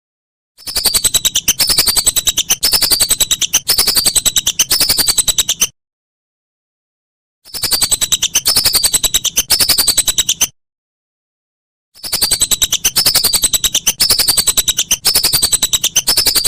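Lesser whistling ducks (belibis) calling: high whistled notes, each falling in pitch, repeated in quick succession. They come in three bouts with dead silence between them.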